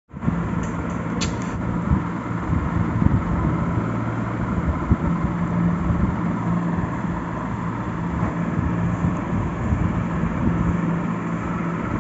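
Steady low hum and rumble with a constant low drone, like a running motor, with a short click about a second in and a few soft knocks.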